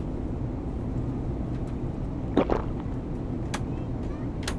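Steady low drone of an airliner cabin in flight, with a short, louder noisy sound about two and a half seconds in and a couple of faint clicks.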